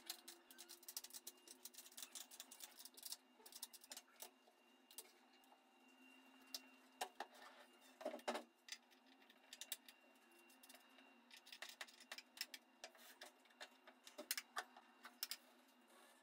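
Light, irregular clicks and taps of wooden parts and small metal hinges as a folding pine table is handled, its top lifted and its frame opened out, with a louder wooden bump about eight seconds in.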